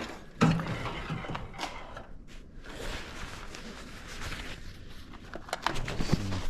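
Handling noise from hand tools while loosening lug nuts: a sharp metal knock about half a second in, scraping and rustling, then several quick clicks near the end.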